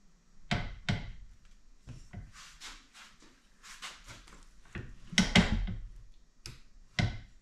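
Metal clunks, knocks and scraping from the gearcase of a 1985 Mercury 9.8 hp outboard being pushed and wiggled up against the midsection to line up the driveshaft and water tube. Two sharp knocks come about half a second apart near the start, a longer scraping clatter runs around the middle, and two more knocks come near the end.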